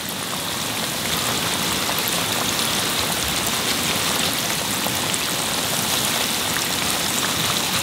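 Batter-coated chicken breast pieces deep-frying in hot oil, a steady, even crackling sizzle. This is the first, lower-temperature fry of double-fried Korean dakgangjeong.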